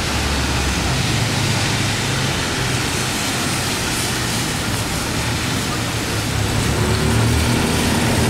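Road traffic: a steady rumble and hiss of passing cars, with an engine note coming in near the end.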